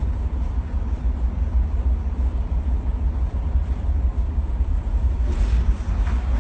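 Steady low rumble of a car ferry's engines under way, mixed with wind noise, with a brief hiss about five seconds in.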